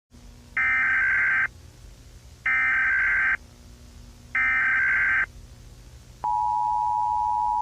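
Emergency Alert System SAME header: three bursts of warbling data tones, each just under a second long and evenly spaced, then the EAS two-tone attention signal starting about six seconds in and holding steady, over a faint low hum.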